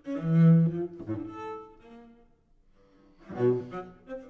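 Solo cello bowed in sudden loud accented strokes that ring and die away. One gesture comes right at the start and another about three seconds in, with a short softer stroke near the end.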